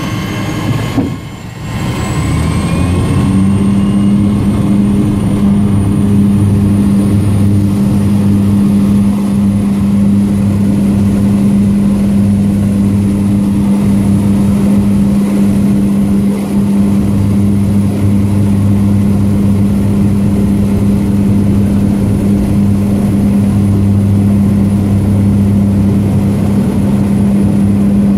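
A floatplane's propeller engine heard from inside the cabin. After a brief drop about a second in, it speeds up with a rising whine, then runs loud and steady as the plane moves across the water.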